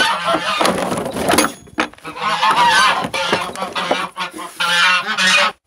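Domestic geese honking loudly, several calls overlapping, with short breaks; the sound cuts off suddenly near the end.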